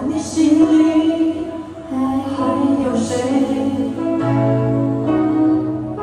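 A slow song: a held, sung melody over instrumental backing.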